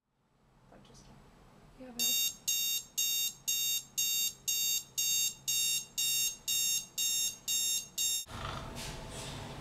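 Digital bedside alarm clock beeping in a steady string, about two beeps a second, a dozen or so in a row, then cutting off suddenly near the end.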